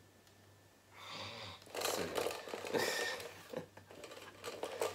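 A man's breathy laughter, beginning about a second in after a quiet start and coming in uneven bursts.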